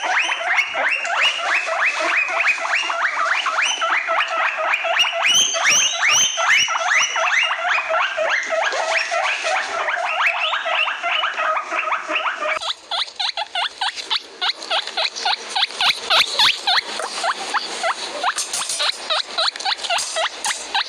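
Guinea pig squealing (wheeking) in a fast run of short, repeated, upward-hooking calls, about five a second. Roughly two-thirds of the way through, the calls turn higher and sharper with brief gaps between them. This is the attention-seeking call guinea pigs make.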